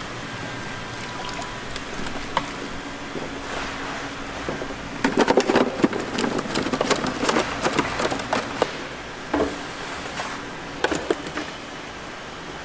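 Water splashing and trickling in a live seafood tank under a steady hiss, then, about five seconds in, a burst of clattering and knocking as live lobsters are tipped into a plastic crate, their shells rattling against each other and the plastic. A few more knocks come near the end.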